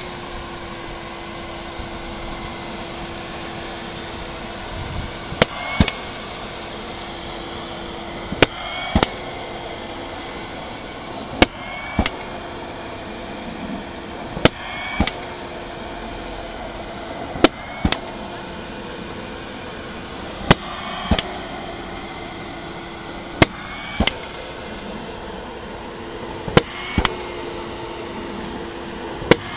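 Lobster 401 tennis ball machine running in oscillation mode: a steady motor hum, broken about every three seconds by a pair of sharp clacks half a second apart as it fires a ball, with the hum dipping briefly at each shot.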